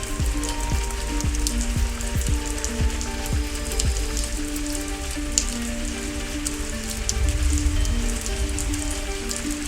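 Rain falling close to the microphone, a dense hiss with many sharp drop ticks. Soft background music of held notes that change every second or so plays underneath.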